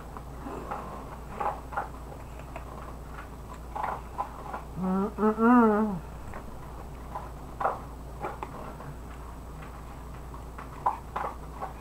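Eating sounds of a person working through rice stick noodles with chopsticks: scattered soft smacks and clicks of chewing, lips and chopsticks. About five seconds in comes a short hummed vocal sound that rises and falls.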